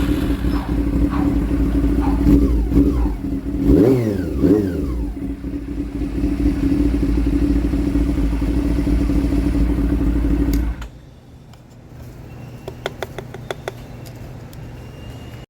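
Honda CB400 motorcycle engine running at idle, blipped briefly about four seconds in, then shut off a little before eleven seconds; a few light clicks follow. The bike is being run to check a rough idle, which the mechanic puts down to the carburettor's float valve or pilot jet.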